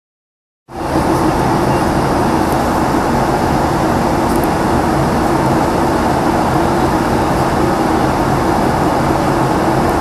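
Steady cabin noise of a plane in flight: engines and rushing air with a faint steady low hum. It cuts in suddenly just under a second in.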